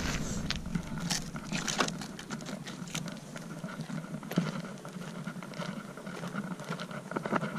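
Scattered small clicks and scuffs of a model glider being picked up and handled, with footsteps on a gravel track.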